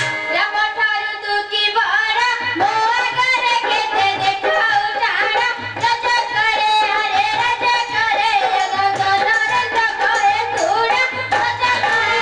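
A voice singing a long, ornamented melody, holding and bending its notes, over a steady drum beat: traditional folk-theatre song accompaniment.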